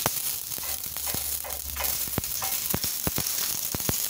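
Dried chiles sizzling in a little lard on a hot comal: a steady hiss with scattered sharp crackles.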